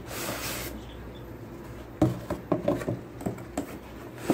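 Hands rummaging in a cardboard shipping box: a short rustling scrape at first, then from about halfway through a run of irregular light knocks and taps as the packaging inside is handled.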